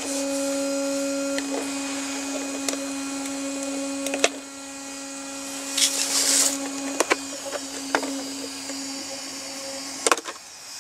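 A steady hum holding one low pitch, with a few sharp clicks and a short hiss in the middle; the hum cuts off near the end.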